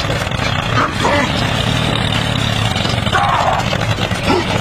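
Tractor engine sound effect running steadily with a fast chug. Short gliding voice-like squeals come over it about a second in and again around three seconds in.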